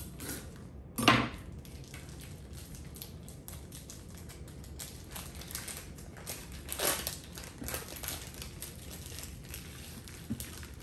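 A chef's knife knocks hard on a plastic cutting board about a second in. Then the plastic wrapper of a hot dog package crinkles and tears as it is pulled open.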